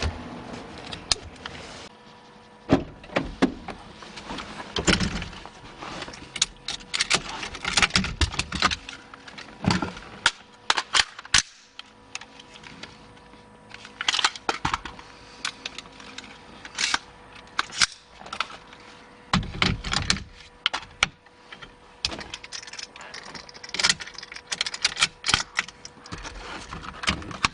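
Irregular clicks, clacks and metallic rattles of handling: an AR-15 rifle being handled and set into a locking rifle mount, with seat-belt hardware clicking as it is pulled through near the start.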